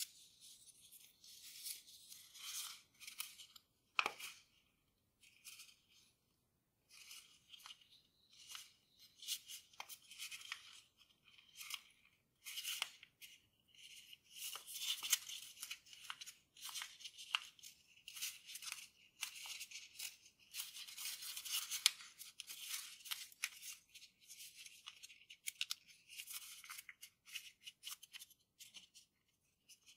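Grainy origami paper rustling and crinkling as hands fold, crease and shape it, in irregular crisp crackles, with a sharper click about four seconds in and busier handling from about twelve seconds on.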